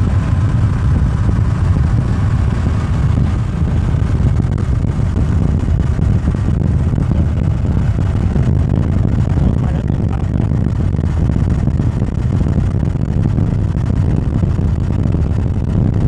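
Wind buffeting the microphone of a cyclist riding along, a steady low rumble.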